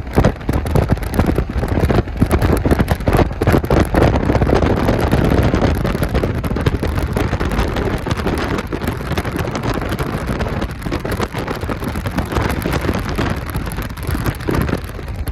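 Rocks raining down: a dense, continuous clatter of many small stone impacts over a steady low rumble, easing slightly towards the end.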